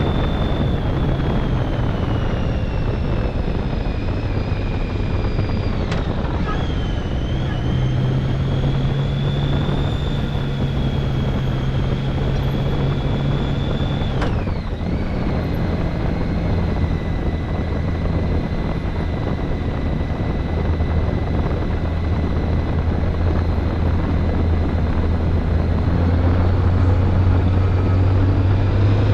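Motorcycle engine running at road speed with wind rushing past, its pitch changing abruptly twice, about six seconds in and again about halfway through, as through gear changes.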